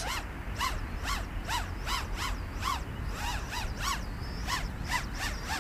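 Eachine Tyro 79S FPV racing quadcopter's brushless motors and propellers whining in quick throttle blips, the pitch rising and falling over and over, a few times a second.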